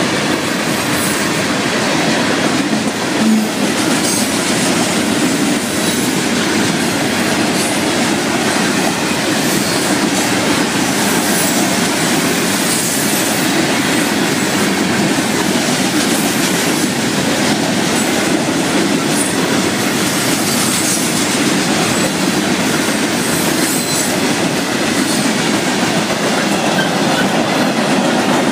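Florida East Coast Railway freight cars passing at speed over a grade crossing: steady, loud rolling of steel wheels on rail.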